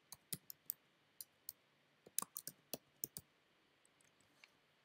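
Typing on a computer keyboard: about a dozen sharp, irregular keystroke clicks, thinning out to a few fainter ones after about three seconds.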